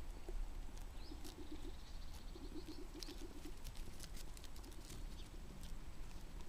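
Lambs grazing: grass being torn and chewed, heard as a scatter of crisp clicks and crunches.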